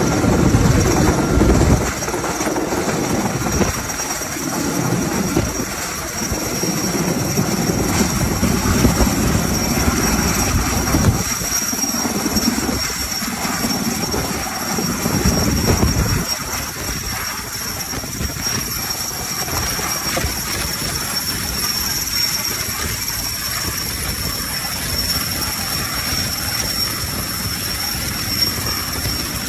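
Sikorsky S-64 SkyCrane heavy-lift helicopter flying, its twin turboshaft engines giving a steady high whine over the low beat of the rotor. The rotor beat is loud for about the first sixteen seconds, then drops lower while the whine carries on.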